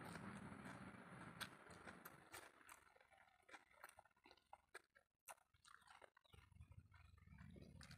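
Faint mouth sounds of children eating rice and egg curry by hand: chewing and lip-smacking, heard as scattered short wet clicks.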